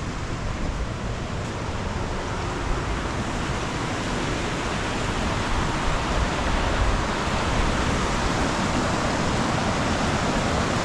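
Rushing water from a waterfall and its river: a steady, even noise that grows gradually louder through the second half.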